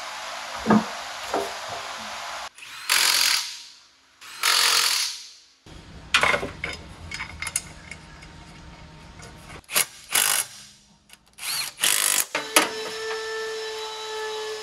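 Handheld power tool run in short bursts, four times, between clicks and knocks of tools on metal. A steady tone joins near the end.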